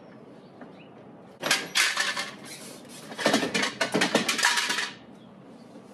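Infiniti FX plastic front bumper cover clattering and its clips snapping as it is pulled loose from the car: two bouts of rapid clicks and knocks, the second longer.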